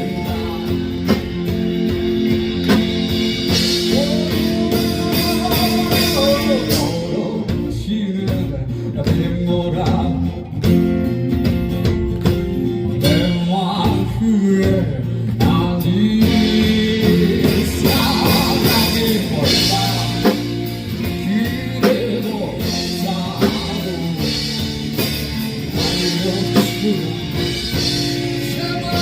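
Live band playing an instrumental passage with guitar and drum kit, following the end of a sung line.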